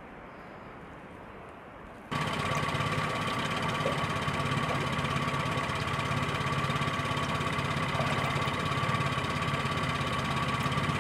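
A motor running steadily with a constant whine and a low hum. It starts abruptly about two seconds in, after faint outdoor ambience.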